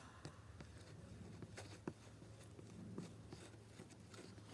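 Faint scraping and light clicks of a spoon stirring glue, lotion and food colouring in a plastic container.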